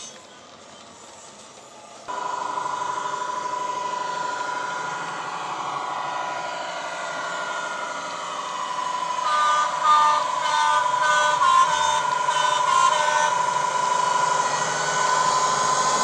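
Digital sound decoder (ESU LokSound) in a Bachmann model Class 66, playing its diesel engine sound through a small speaker, running steadily from about two seconds in. A run of short two-tone horn toots sounds in the middle, and the engine sound grows louder near the end as the locomotive passes.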